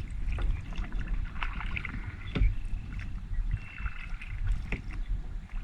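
Kayak paddling: paddle strokes and water sloshing over a low rumble, with a few sharp knocks, about two and a half seconds in and near the end.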